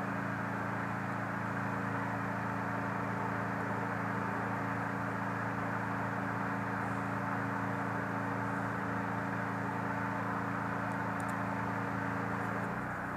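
Steady machine hum: a constant low drone made of several tones over a hiss, shifting slightly in pitch near the end.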